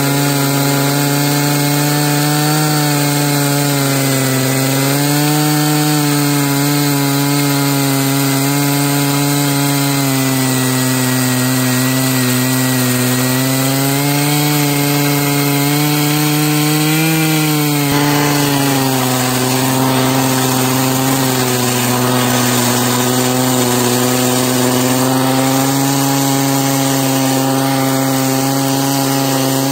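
Stihl MS880 chainsaw, a large two-stroke, running at high revs under load in an Alaskan chainsaw mill, cutting a slab from a beech log. The engine note stays steady, sagging and recovering slowly as the chain works through the cut.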